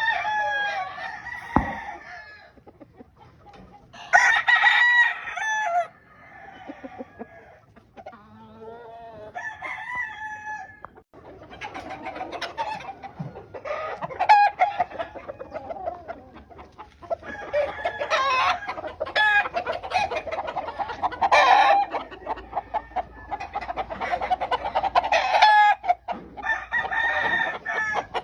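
Several gamefowl roosters crowing again and again, their crows overlapping in bouts of a few seconds, with clucking in between.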